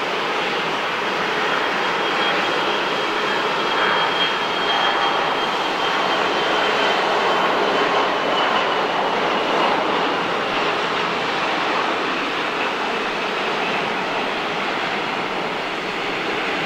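Bombardier CRJ-702's twin rear-mounted General Electric CF34 turbofans at takeoff thrust through the takeoff roll, rotation and lift-off: a steady jet roar with a faint high whine that slowly drops in pitch.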